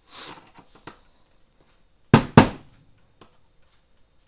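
Rubber mallet striking a hinge pin on a wooden Singer sewing machine carry case, tapping the pin down to seat it flush. Two sharp blows about two seconds in, a quarter-second apart, and a third at the end.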